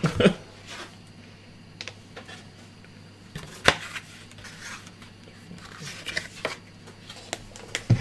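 A motherboard in its anti-static bag and its box being handled on a desk: sparse light clicks and plastic rustles, one sharp knock about halfway through and another click near the end, over a low steady hum.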